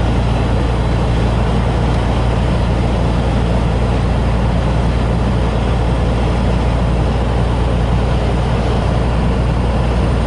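Steady drone of a truck's engine and tyre and road noise heard inside the cab while cruising on the highway, loud and unchanging throughout.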